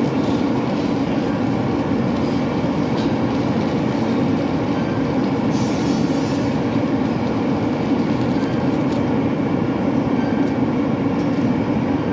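Steady, loud machine rumble that runs on without a break or change in pitch, from machinery running on a work site.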